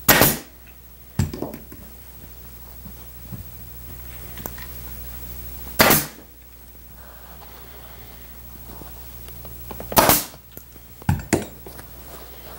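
Pneumatic upholstery staple gun firing staples into a wooden chair frame: three loud sharp shots several seconds apart, with a few lighter knocks in between.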